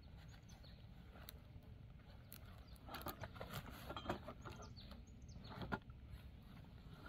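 Faint rustling of fabric and webbing as a backpack is packed and its lid and straps handled, with a few sharp clicks, louder about three to six seconds in.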